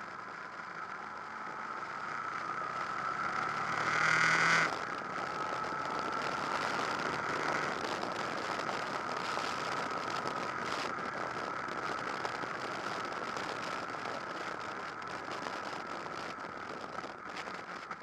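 Honda VFR800 VTEC's V4 engine running under way with wind noise, heard from a camera on the bike. It rises in loudness and pitch over the first few seconds, drops off suddenly about four and a half seconds in, and then runs fairly steadily.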